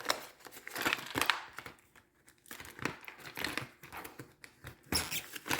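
Plastic packaging crinkling and rustling in irregular spells as small packaged craft tools are handled and packed away, with a short lull about two seconds in.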